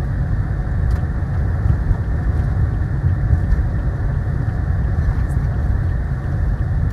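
Steady road and engine rumble inside a moving vehicle's cabin, its tyres running on a concrete road.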